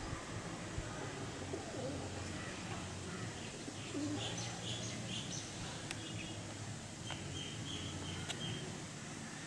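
Outdoor ambience with birds chirping in short high bursts, in two clusters through the middle and latter part, over a steady low hum.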